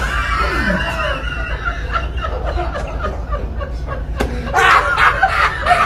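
People laughing hard in irregular bursts, growing louder in the second half, with one sharp knock about four seconds in.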